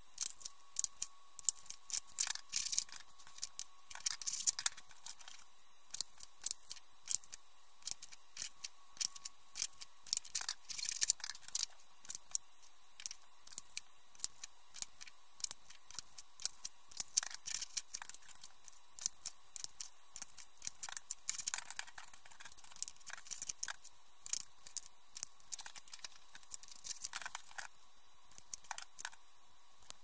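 Handheld half-inch circle punch snapping through cardstock, a quick, irregular run of sharp clicks and crunches.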